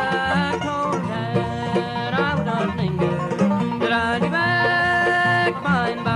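Bluegrass band playing, the banjo prominent over guitar, mandolin and bass, with a steady rhythm and some long held notes.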